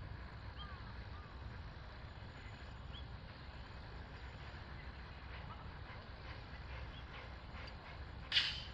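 Small narrow-gauge steam locomotive running slowly: faint clicks and clanks over a steady low rumble, then one short loud hiss near the end. Small birds chirp faintly early on.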